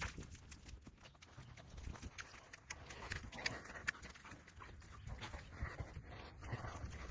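A dog close by, breathing and moving about, with scattered sharp clicks and scuffs.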